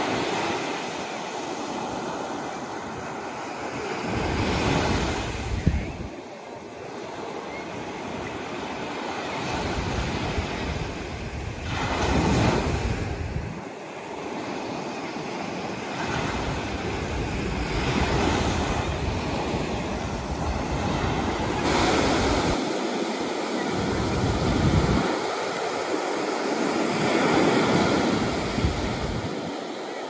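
Small surf breaking and washing up a sandy beach, the wash swelling and easing every few seconds. Wind buffets the microphone now and then with a low rumble.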